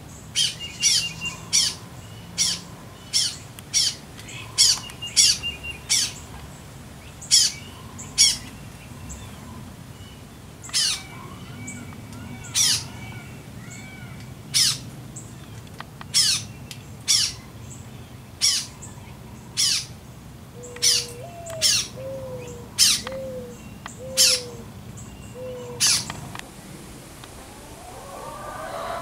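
A bird giving loud, sharp calls over and over, about one to two a second, with fainter chirps between them. From about two-thirds of the way in, a lower short falling note repeats five times, and the sharp calls stop a few seconds before the end.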